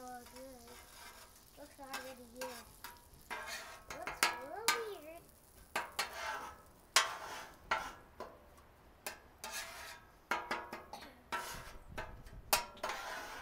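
Metal spatulas scraping and clacking against the steel cooktop of a Blackstone griddle in irregular strokes, mixing melted butter with cinnamon and sugar, over a faint sizzle.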